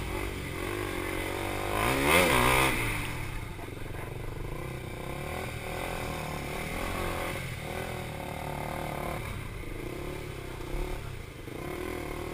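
KTM Duke 390 single-cylinder engine running hard around a tight track, its revs rising and falling through the corners, with a louder surge of revs about two seconds in.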